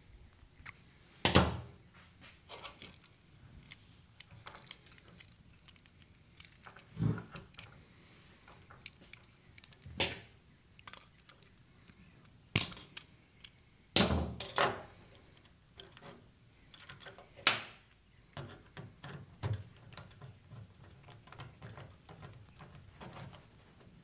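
Hand tools and small electrical parts handled on a workbench: wire strippers clicking and snipping, a receptacle and tools knocked and set down. Irregular sharp clicks and knocks throughout, with a handful of louder clunks, the first about a second in.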